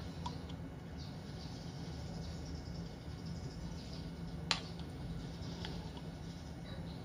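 A sauce bottle being handled and tipped over a bowl: a few faint clicks and one sharp click about four and a half seconds in, over a steady low hum.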